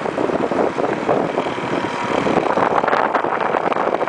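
A car driving along at low speed, heard from inside: engine and tyre noise, with wind buffeting the microphone so that the loudness flutters unevenly.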